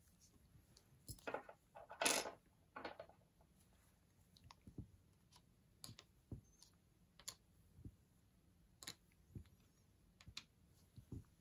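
Light clicks and knocks of small steel taps and their clear plastic cases being handled on a wooden table, with a louder bout of rustling and scraping about two seconds in.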